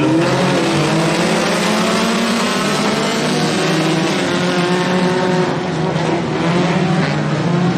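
A pack of four-cylinder Super 4 dirt-track race cars running together at racing speed, several engines overlapping with their pitches sliding up and down as they go through the turns.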